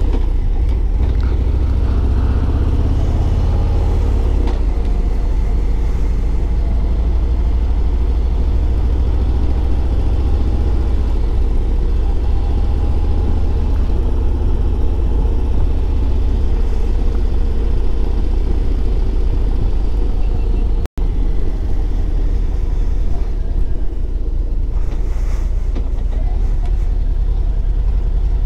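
Harley-Davidson Ultra Limited's V-twin engine running steadily while riding along a road, a continuous deep rumble. The sound cuts out for an instant about two-thirds of the way through.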